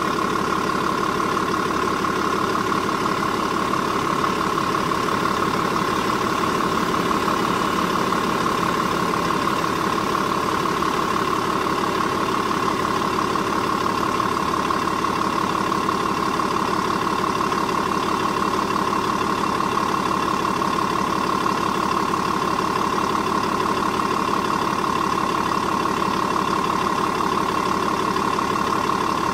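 Mercedes E 320 CDI W210 straight-six diesel engine idling steadily, with a constant high whine over it.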